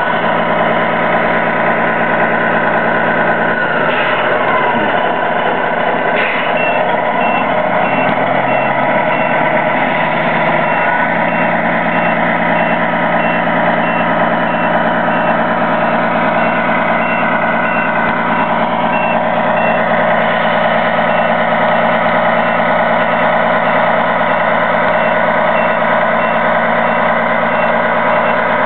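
The Tamiya Knight Hauler RC tractor's sound unit playing a simulated truck diesel engine running steadily, with a repeating reversing-alarm beep from about six seconds in as the truck backs up.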